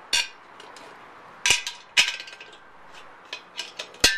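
Steel lag screws clinking against a metal bracket as they are handled and set into pre-drilled holes: four sharp metallic clinks with lighter ticks between them, the last two leaving a brief ringing tone.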